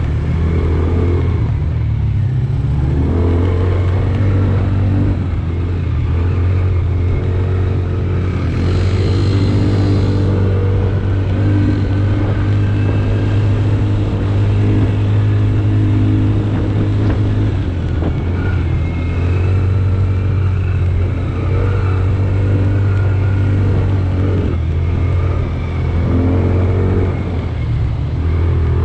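A motor vehicle's engine running steadily, easing off briefly a few times, with a short burst of hiss about nine seconds in.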